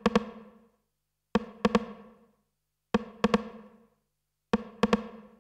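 Opening of a 1995 electronic dance record: a lone ringing drum hit played in short groups of about three, repeating roughly every second and a half, each group dying away into silence.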